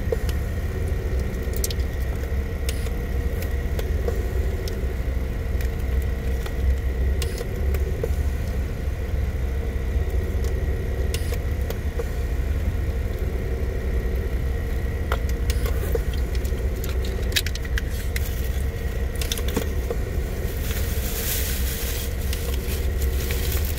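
Car idling, heard inside the cabin as a steady low rumble with a steady hum, with a few small clicks of handling. Near the end a plastic shopping bag rustles.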